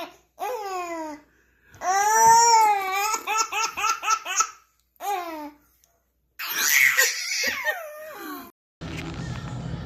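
A baby laughing in repeated bursts of rapid, high-pitched giggles with squealing, falling cries between them. Near the end the sound cuts to a different scene with a steady low hum.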